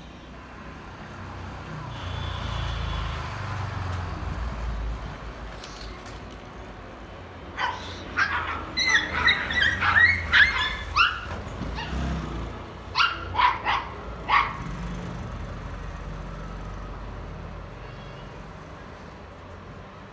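Puppy yipping: a quick run of short, high-pitched yips, then three more a couple of seconds later, over a low rumble.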